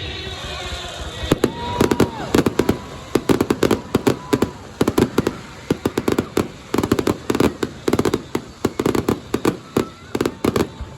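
Fireworks going off in rapid, dense volleys of sharp bangs and crackles, several a second, with a faint whistling tone rising about a second and a half in.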